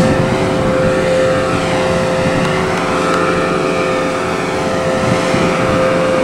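Wind rushing and buffeting over the microphone while hanging under a parasail, with a steady humming tone under it.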